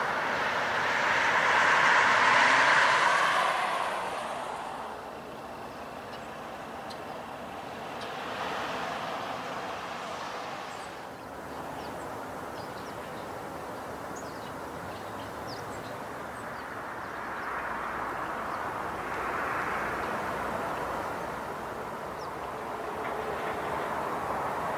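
Road traffic passing: a noise of tyres and engines that swells and fades several times, loudest in the first few seconds.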